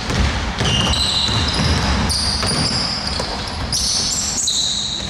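Basketball being dribbled on a hardwood gym floor, a run of low thuds, with several short high squeaks from players' sneakers on the court.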